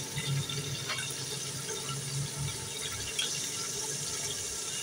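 Hot oil sizzling steadily in a steel pot of fried onions and tomatoes as ginger-garlic paste goes in, with a couple of faint clicks.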